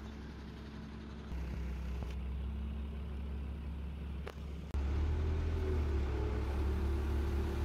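Diesel engines of construction machinery (an excavator and a truck crane) running with a steady low rumble. The sound steps louder about a second in and again just past the middle. A single short click sounds shortly before the second step.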